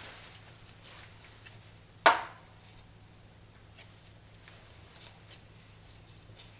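A single sharp knock about two seconds in, followed by a few faint light ticks over a steady low hum.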